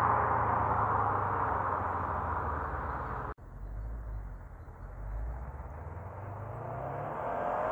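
Stock 2014 Subaru WRX STI's EJ257 turbocharged flat-four engine and exhaust, fading away over the first three seconds. After an abrupt cut, a quieter low rumble grows louder again toward the end, with its pitch rising slightly.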